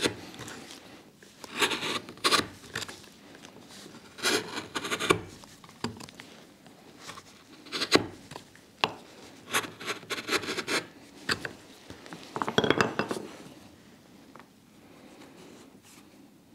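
Hand chisel paring waste from a small wooden block: a series of short scraping cuts with pauses between, while a recess is cleaned back to the marking-gauge line.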